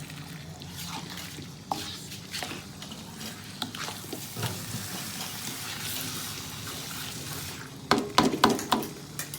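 Chicken curry frying in a non-stick wok, a steady sizzle with scattered scrapes and clicks of stirring, and a few sharp knocks near the end.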